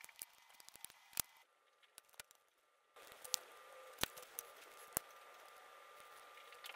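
Faint, scattered small clicks and taps from handling an Arduino Nano and relay board while soldering the board's pins to the header. A low hiss comes in about three seconds in, with a few sharper clicks after it.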